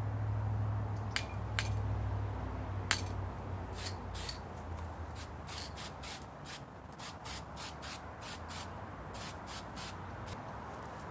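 A run of short, sharp hissing bursts, roughly two or three a second, over a low hum that fades out in the first few seconds.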